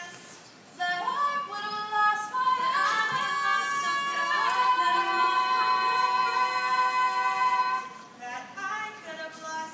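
Unaccompanied female singing, live on stage: long held notes start about a second in, then drop to softer, shorter phrases near the end.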